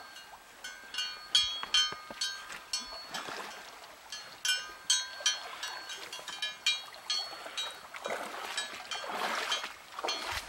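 Small metal bell on a saddled pack horse's tack ringing in irregular clinks as the horse shifts and moves, each ring at the same pitch. A soft rushing noise rises near the end.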